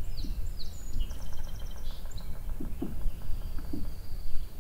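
Songbirds calling over a steady low rumble: a run of chirps and a quick trill in the first two seconds, then a thin high note held for about two seconds.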